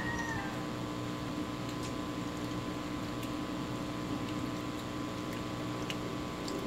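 Steady electric-fan hum holding a few fixed tones, with a few faint clicks.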